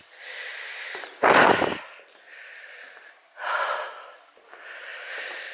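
A person breathing in and out close to the microphone: several unvoiced breaths, the strongest about a second in.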